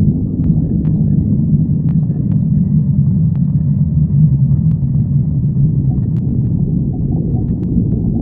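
A hungry person's stomach growling: a continuous low rumble, with faint clicks scattered through it.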